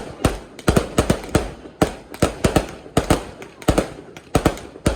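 Fireworks going off in a rapid, irregular series of sharp bangs, several a second and some in quick clusters, each with a short echoing tail.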